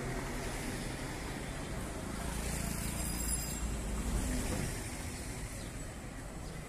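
City street traffic: motor vehicles running by with a steady low rumble, swelling slightly about four seconds in.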